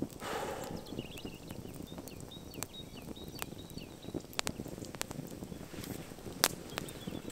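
Campfire embers crackling with irregular sharp pops, the loudest about six and a half seconds in, while small birds chirp faintly in the background during the first few seconds.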